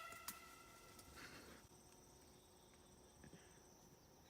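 Near silence. The last of an air horn blast fades away in the first second, and a faint, steady high insect drone carries on.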